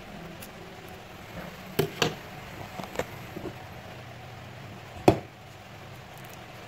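Scissors snipping through folded tissue paper: a few short, sharp snips in the first few seconds, then one louder click about five seconds in.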